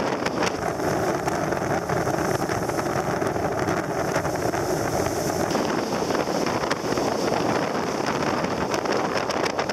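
Strong wind buffeting the microphone in gusts over the rush of water around a sailing yacht heeling in rough, whitecapped sea.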